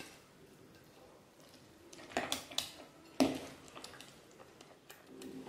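Silicone spatula stirring cooked sago pearls into thick blended papaya in a glass bowl: soft stirring, with a few sharper knocks and scrapes against the glass about two to three seconds in, the loudest just after three seconds.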